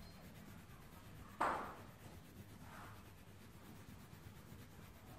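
Faint scratching of a pencil on paper. About one and a half seconds in, one sudden louder sound dies away quickly, and a weaker one follows near three seconds.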